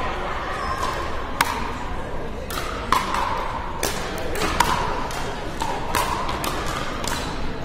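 Pickleball rally: paddles hitting the hard plastic ball with sharp pocks about once a second, mixed with ball bounces and hits from neighbouring courts, each ringing briefly in the large hall.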